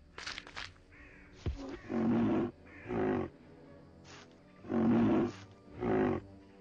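A cartoon troll's deep, rough vocal grunts, four of them in two pairs, each about half a second long. A few short crunching footsteps come just before them.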